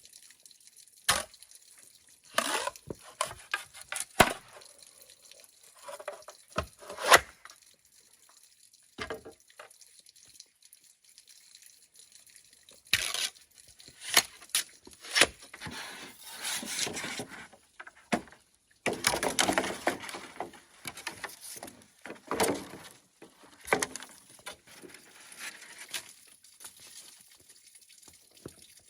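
Kitchen handling sounds: a string of separate knocks and clatters, with longer stretches of rustling or splashing a little after halfway.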